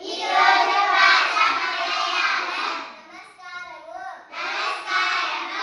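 Group of schoolchildren reciting Malayalam in chorus, chanting lines from a blackboard in a sing-song unison, in two loud stretches with a quieter gap about three seconds in.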